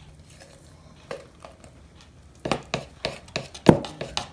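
A metal spoon stirring thick batter in a mixing bowl, knocking against the bowl's side about five times a second, starting halfway through after a quiet stretch while flour is poured in.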